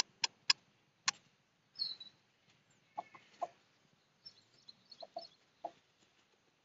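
Several sharp clicks in the first second or so, then scattered short clucks and high chirps from farmyard fowl.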